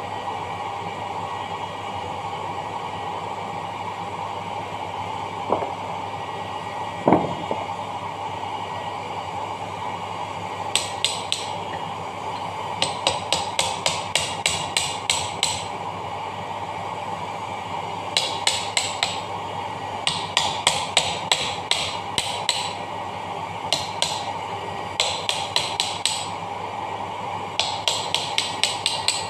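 Hammer striking a steel drift punch set against the ball bearing in the cast gearbox housing of an Electrolux BMX e80 dough mixer, to move the bearing in its seat. Two single knocks come first, then from about ten seconds in there are several runs of quick, ringing metallic taps, about five a second.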